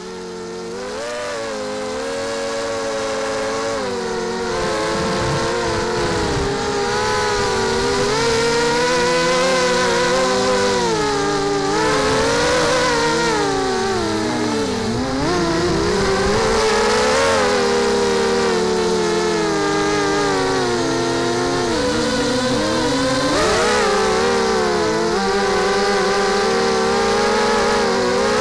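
The four Tiger 1806 2300KV brushless motors of a mini quadcopter spinning 5-inch Gemfan props, heard close up from the onboard camera: a loud whine of several tones that spools up over the first couple of seconds at takeoff, then keeps rising and falling in pitch as the throttle changes.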